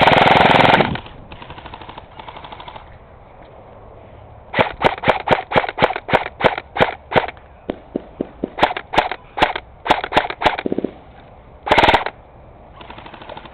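Airsoft guns firing rapid strings of sharp single shots, about five a second, in two runs with a short gap between them. A loud burst about a second long comes at the start, and a shorter one comes near the end.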